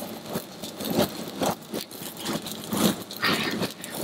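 Pumpkin pieces sizzling in vadouvan oil on a hot stainless-steel plancha, with irregular knocks and taps as more pieces are set down on the steel; a brief louder hiss a little after three seconds in.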